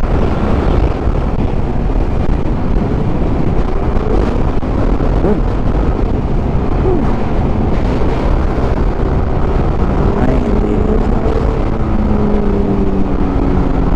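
Yamaha scooter riding at road speed: wind rushing over the microphone with the scooter's engine and the tyres running steadily underneath. A steady engine hum from nearby traffic grows clearer in the last few seconds.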